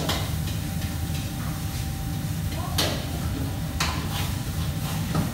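Working kitchen: a steady low mechanical drone, with four sharp metallic clatters of stainless-steel bowls and utensils, the loudest about three seconds in.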